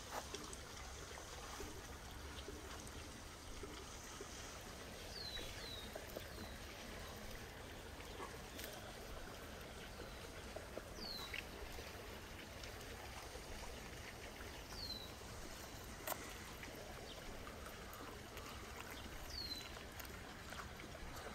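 Outdoor ambience: a steady rush like running water, with a small bird repeating a short, sharply falling call note every few seconds.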